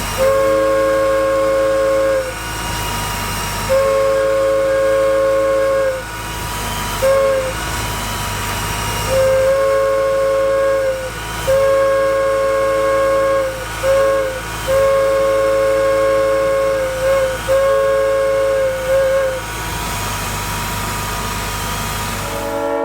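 Hancock air whistle, a steam-style chime whistle blown on compressed air, sounding a chord of several steady tones. It gives about six blasts of roughly two seconds each, with a few short toots between them.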